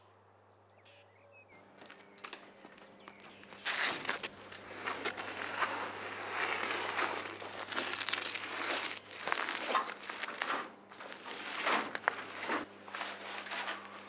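Two men scuffling in dry grass and brush: feet trampling and crunching through brittle vegetation, with dense rustling, crackles and knocks. It starts about four seconds in, after a quiet start, and dies down near the end.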